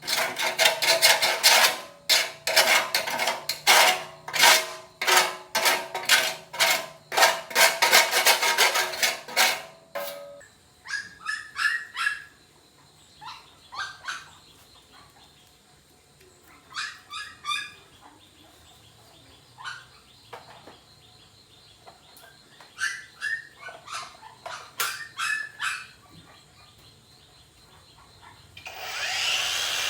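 Rapid repeated strokes on metal with a faint ringing tone for about ten seconds, then they stop. After that come sparse bird chirps, and just before the end a power tool starts up.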